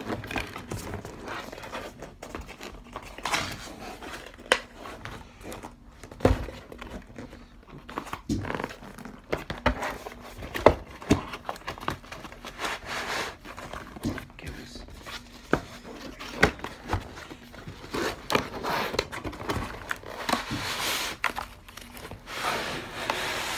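Cardboard keyboard box being handled and opened: rubbing and scraping of cardboard as the inner box slides out of its sleeve, with crinkling packaging and scattered sharp knocks and taps.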